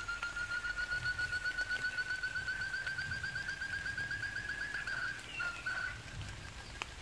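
Forest quail call: one long, rapidly pulsed whistle, about six pulses a second, rising slowly in pitch for about five seconds, followed by two short notes.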